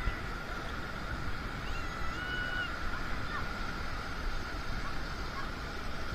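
Wind buffeting the microphone over the steady wash of ocean surf. A few faint, short high calls come through about two seconds in.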